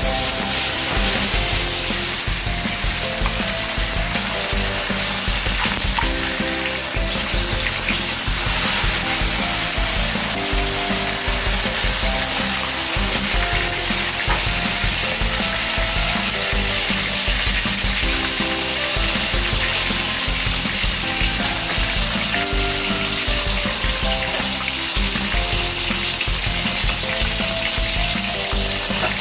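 Whole tilapia frying in hot oil in a wok: a steady, loud sizzle.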